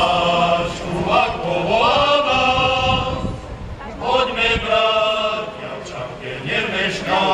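Male miners' choir singing slow phrases in unison and harmony, with long held notes and no accompaniment.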